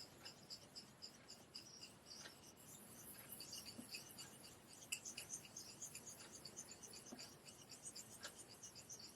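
Straight razor being honed on a wet Japanese natural finishing whetstone: the blade's edge scrapes softly across the stone in a faint, quick, even run of strokes.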